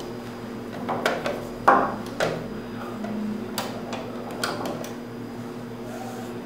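Clicks and knocks of a sewing machine and its fabric being handled after the stitching stops, irregular, with the loudest knock about a second and a half in, over a steady low hum.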